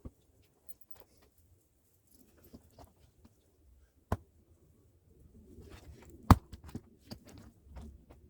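Two sharp knocks of a hand axe striking firewood, about two seconds apart, the second the louder, with small clicks and rustling between them. Played back at double speed.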